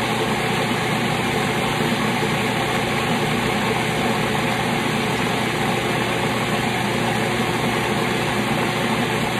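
Old Cuisinart food processor motor running steadily at full speed, its blade chopping a packed bowl of sofrito (cilantro, garlic, onion, peppers) down to a fine paste. The motor cuts off abruptly at the end.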